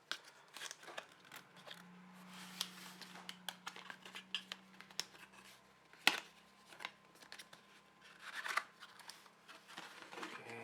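Cutting into a cardboard shipping box: quick snips and scrapes with scattered clicks and cardboard rustles, and one sharp knock a little past the middle. A faint low hum runs under the first half.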